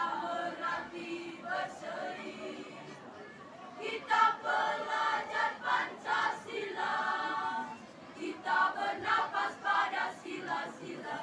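Junior high school choir singing in parts, phrase after phrase, with short breaths between phrases.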